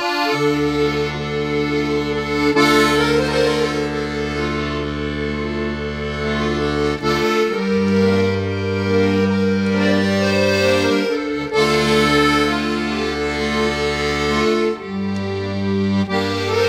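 Accordion playing the instrumental opening of a klezmer folk song: a melody over sustained bass chords that change every few seconds.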